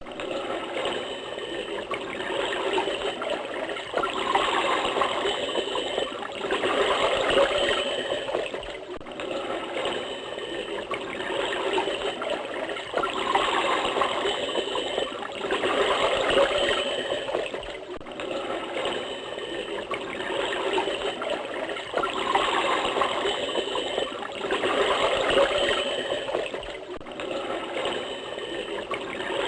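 Mugger crocodile sound effect: a continuous rough, noisy sound that swells and fades about every three seconds, its pattern repeating like a loop.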